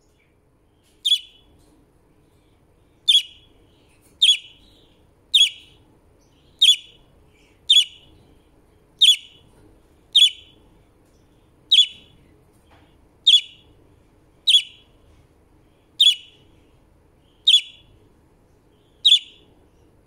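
Budgie giving short, sharp single chirps, fourteen in all, repeated about every second or so.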